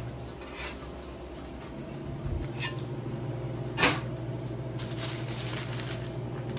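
Kitchen counter work while a sandwich is finished: a few light knocks, then one sharp clack about four seconds in, over a steady low hum of kitchen equipment.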